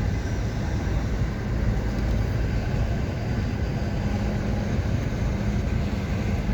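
A car driving on the road: steady engine and tyre rumble.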